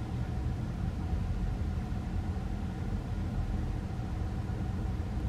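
Steady low rumble of a car cabin, with no distinct events.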